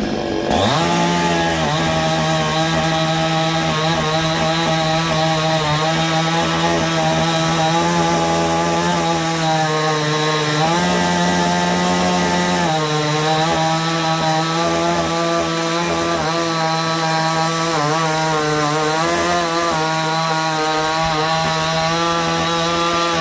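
Pinkway 63cc two-stroke chainsaw revving up and cutting through a log at full throttle, its engine note steady under load. About halfway through the pitch rises for a couple of seconds, then settles back as it keeps cutting.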